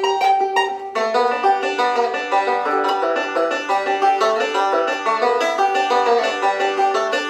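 Hatfield Walnut Special resonator banjo, with a walnut neck and resonator, being picked in a quick, continuous run of notes. About a second in, the playing moves into a busier passage that reaches lower on the instrument. The tone is loud, dry and punchy, with an aggressive edge.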